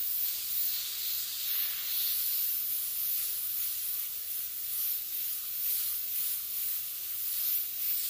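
Airbrush hissing as air and paint spray from the nozzle during short freehand strokes, the hiss swelling and easing as the trigger is worked.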